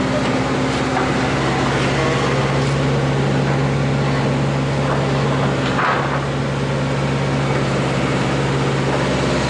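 An engine running steadily at constant speed, a continuous low hum.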